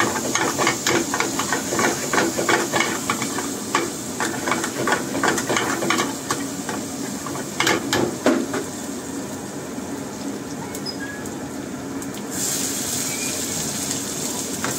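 Steel ladle scraping and stirring a masala in an aluminium pan over a hissing commercial gas burner, with frying sizzle, in quick repeated strokes. About eight seconds in the scraping stops and the hiss runs on. About twelve seconds in the sound changes to a brighter sizzle as sliced onion and capsicum fry in the pan.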